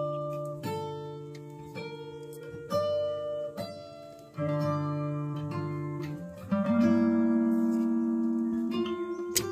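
Background music: acoustic guitar playing plucked notes and strummed chords.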